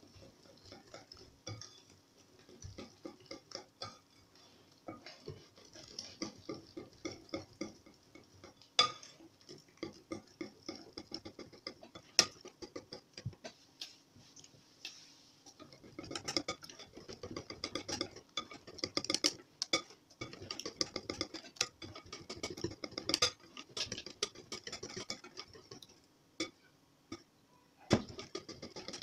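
Wire whisk beating cake batter in a glass bowl as flour is worked in, its wires ticking against the glass. The ticks are spaced out at first, with a few sharper knocks, then come fast and dense about halfway through before a short pause near the end.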